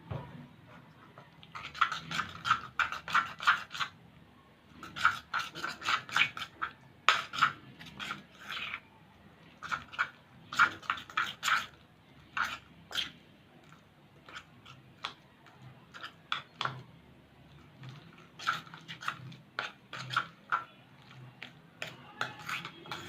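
Homemade glue-and-borax slime being squeezed and kneaded in the hands, giving bursts of wet clicking and popping several times, with short pauses between handfuls.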